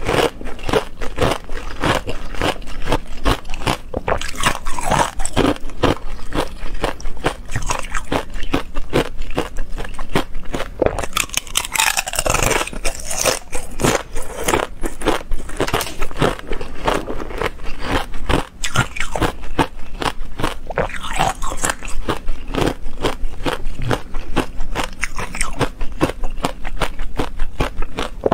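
Hard ice being bitten and chewed, close to a clip-on microphone: a dense, irregular run of sharp crunches and cracks as the ice domes break apart between the teeth.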